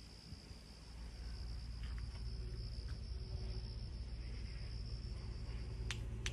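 Insects trilling as one steady high-pitched drone over a low rumble, with two sharp clicks near the end.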